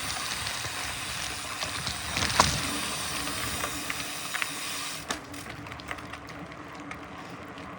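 Mountain bike rolling over a rough dirt trail: tyre noise and wind rush with knocks and rattles from the bike over bumps, the loudest knock about two and a half seconds in. The noise drops after about five seconds as the bike slows, leaving scattered light ticks.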